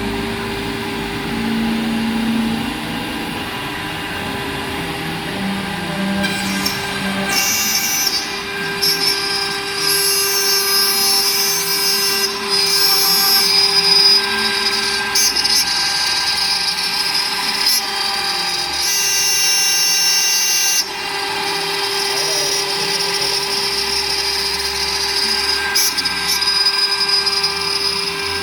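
CNC router spindle running at a steady pitch, with a harsher, high-pitched cutting sound that comes and goes from about six seconds in as the bit machines the workpiece.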